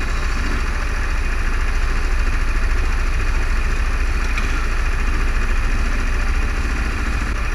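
Several go-kart engines idling together: a steady mechanical rumble with a lot of low-end weight and no revving.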